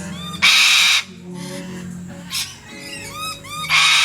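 Wild corellas screeching: two loud, harsh, half-second screeches, one about half a second in and one near the end, with many softer short chirping calls between them.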